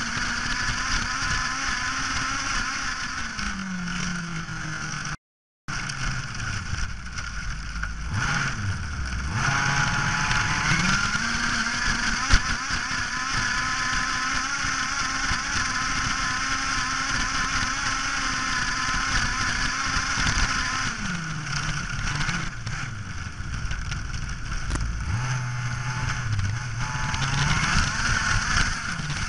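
Small two-stroke engine of a radio-controlled car running at high revs, dropping in revs several times and climbing back as the throttle is eased and opened. The sound cuts out completely for about half a second around five seconds in.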